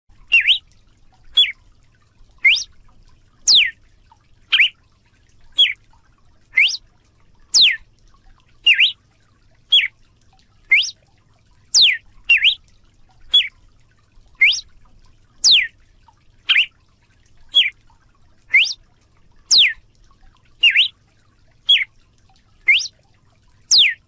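Galo-de-campina (red-cowled cardinal) singing: a steady series of short, clear notes about one a second, alternating quick rising and falling sweeps in a repeating pattern.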